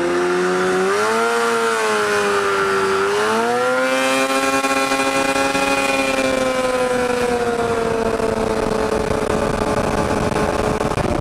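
Snowmobile two-stroke engine in a go-kart, running hard under acceleration. Its pitch climbs, dips briefly about three seconds in, climbs sharply again, then slowly sags over the last several seconds.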